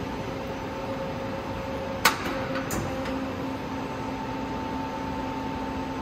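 CNC turning center running with a steady machine hum carrying several constant tones. A sharp metallic clunk from the machine's mechanism comes about two seconds in, followed by a lighter click.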